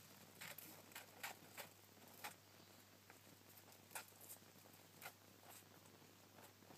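Faint, scattered light clicks and rustles of a Syrian hamster scrabbling in wood-shaving bedding and nudging a plastic ping pong ball, several at the start and sparser later.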